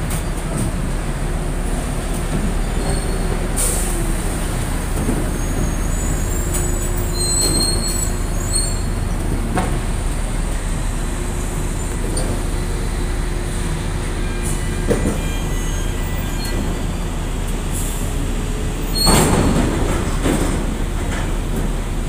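Steady low drone of a ship's deck machinery and crane in port, with scattered short high metallic squeals and a few clicks. A louder rushing noise swells up about three seconds before the end.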